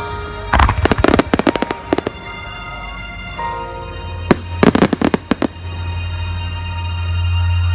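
Fireworks bursting in two rapid clusters of sharp bangs and crackles, about half a second in and again near the middle, over music with long held notes.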